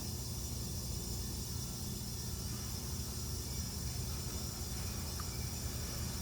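Steady low rumble with a constant hiss; no distinct crunching or other event stands out.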